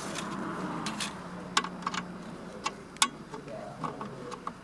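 Irregular light clicks and taps of small parts and hand tools being handled, a dozen or so scattered sharp ticks at uneven intervals.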